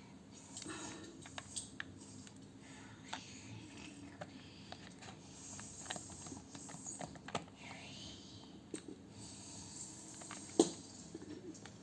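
Plastic toy construction vehicles being handled, giving scattered small clicks and taps, with one sharp knock about ten and a half seconds in.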